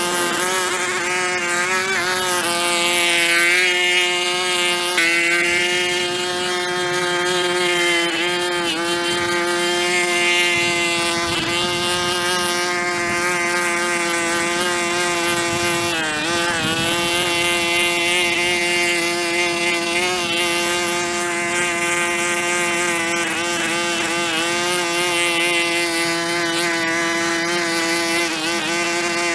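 Small engine of a power tool running steadily at high speed, its pitch holding constant with a brief dip about sixteen seconds in.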